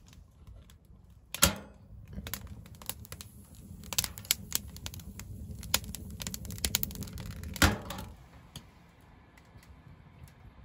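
Wood fire crackling and snapping in the open firebox of a small steel wood stove, over a low rumble of the burn. A sharp metallic knock comes about a second and a half in, and a louder one just before eight seconds, after which the crackle dies down.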